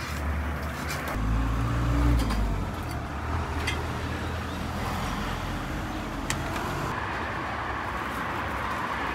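A road vehicle passing on the street: a low engine rumble swells about a second in and fades out by about three seconds, over a steady traffic hum, with a couple of light clicks later on.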